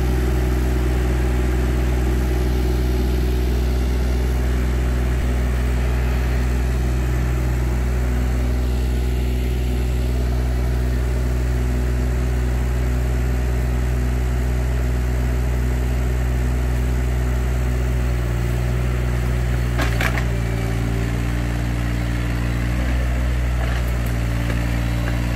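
Takeuchi TB216 mini excavator's diesel engine running steadily as the machine works, its note changing about three-quarters of the way through. A single sharp crack sounds about 20 seconds in.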